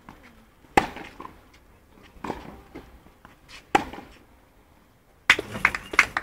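Tennis ball struck by rackets three times in a rally, about a second and a half apart, the nearer player's shots loudest. A little over five seconds in, spectators break into scattered clapping.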